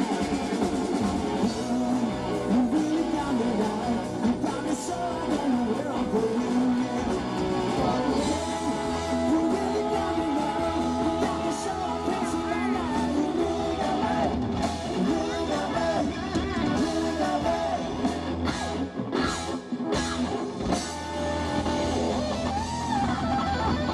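Live rock band playing loudly, with electric guitar, bass guitar and drum kit.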